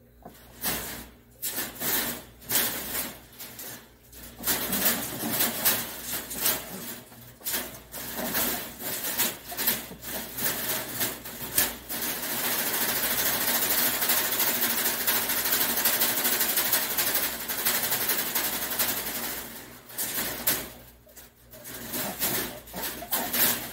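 Rabbits scrabbling on a wire-mesh cage floor, rattling the cage in short bursts, then a buck mounting and breeding a doe, shaking the wire cage in a rapid continuous rattle for about eight seconds from about halfway through. It stops a few seconds before the end, followed by a few scattered rattles.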